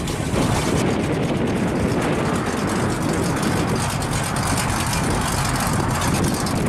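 Hot rod and classic car engines running steadily as the cars drive slowly past: first a 1930s Ford three-window coupe hot rod with an exposed engine, then a black 1955 Chevrolet two-door.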